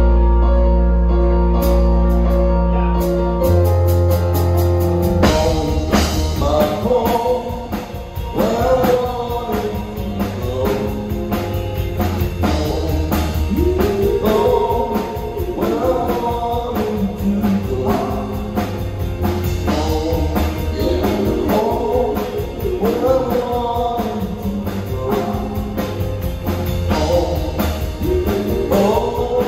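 Live rock band playing: sustained keyboard chords over a deep bass note, then the drum kit comes in about five seconds in and a woman sings over electric guitar, bass and drums.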